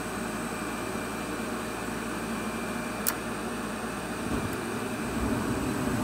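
Gas furnace's induced draft blower running steadily, a sharp click about three seconds in, then a low rumble swelling from about four seconds in as the burners light. The burners are soot-clogged and the flame rolls out at the top burner.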